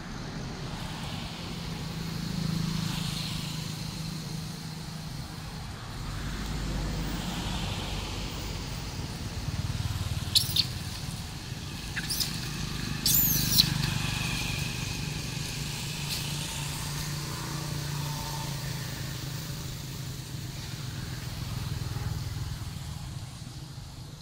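Steady low hum of passing road traffic, swelling and fading. Partway through come a few short, sharp high-pitched calls.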